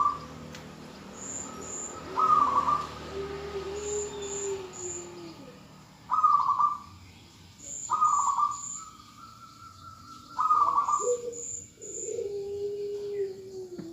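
Zebra doves cooing: a female's call answered by a male's song. Short, loud coos come five times at irregular gaps, and twice a longer, lower coo slides slowly downward. Faint high chirps come in small groups of two or three throughout.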